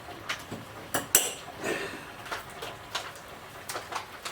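Dishes and cutlery clinking and clattering as they are handled, a string of separate knocks with one sharp clank, the loudest, just over a second in.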